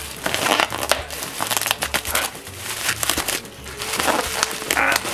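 Black plastic wrapping crinkling and rustling as it is pulled and torn off a boxed package by hand, with irregular sharp crackles.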